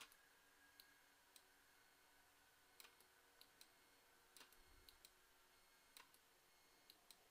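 Near silence broken by faint, irregular computer mouse clicks, about a dozen of them, as the brush strokes are made.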